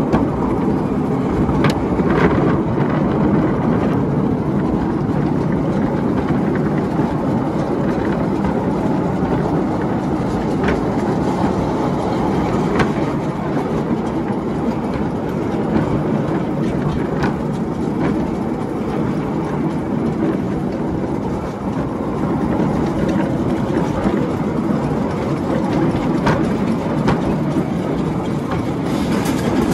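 Miniature steam railway train running along the track, heard from a passenger car: a steady rumble of wheels on rail, with occasional sharp clicks as the wheels cross rail joints.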